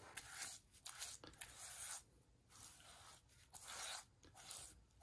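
Rice-straw brush scraping and swishing across the inside of a partly dried clay bowl, spreading white slip in several faint, short strokes.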